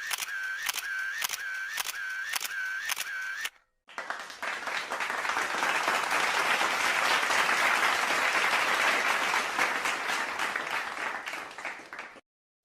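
Repeated clicks, about two and a half a second, each with a short tone, like a camera shutter firing in a burst; they stop about three and a half seconds in. After a brief gap comes a long run of applause that cuts off suddenly near the end.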